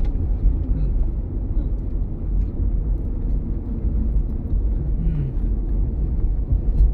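Steady low rumble of road and tyre noise inside the cabin of a moving 2007 Toyota Prius.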